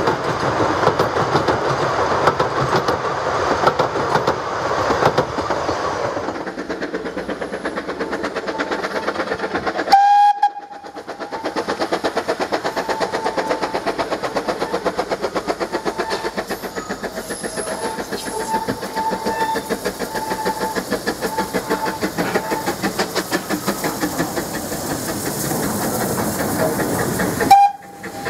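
Narrow-gauge passenger carriages rumble and clatter over a timber trestle bridge. About ten seconds in a short steam whistle sounds. After that the Vale of Rheidol 2-6-2T tank locomotive works its train uphill with a steady, quick exhaust beat of about three or four chuffs a second, with short high squeals now and then.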